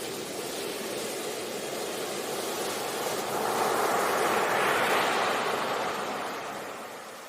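Sea waves on a beach: a steady wash of surf that swells as a wave breaks about halfway through, then recedes.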